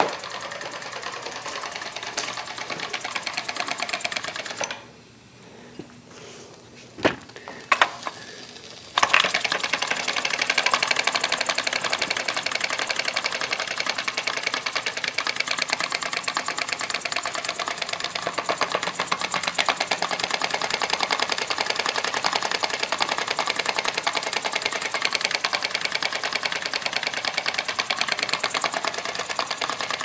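Small model steam engine running fast, a rapid, even clatter of beats. The clatter drops away about five seconds in, with a couple of sharp knocks, and comes back louder about nine seconds in.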